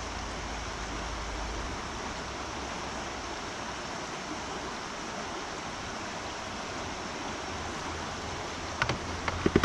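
Steady rush of river water flowing over rocks in a mountain river. Near the end, a few short knocks or clatters.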